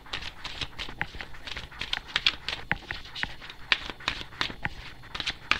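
A deck of tarot cards being shuffled by hand: quick, irregular flicks and slaps of the cards, several a second.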